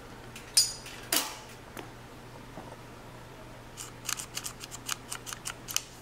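Sharp metallic clicks and ticks from a Harley-Davidson Sportster Ironhead motorcycle. Two louder clicks with a brief ring come about half a second apart near the start, then about a dozen lighter, irregular ticks near the end, over a steady low hum.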